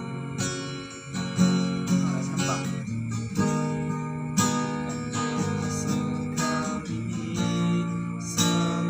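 Acoustic guitar strummed in chords, the strokes coming every half second or so.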